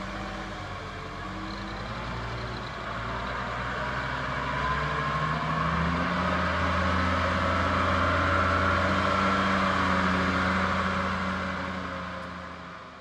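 Taylor marina forklift's engine running as it drives with a boat on its forks: a steady low engine note that grows louder over the first several seconds and fades away near the end.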